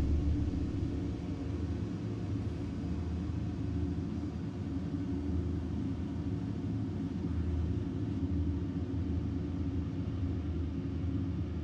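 Low, steady rumbling drone with a few held low tones, easing down in level in the first second.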